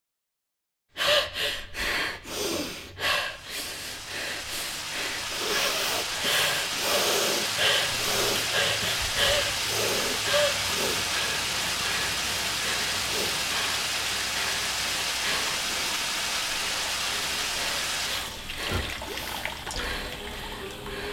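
Kitchen faucet running into the sink. It starts about a second in with a few splashing gushes, then settles into a steady stream; the flow drops near the end as the handle is worked.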